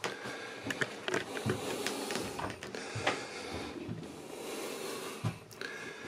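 Scattered light clicks and knocks at irregular intervals over a steady hiss: handling and movement noise of someone moving about a small boat cabin with a handheld camera.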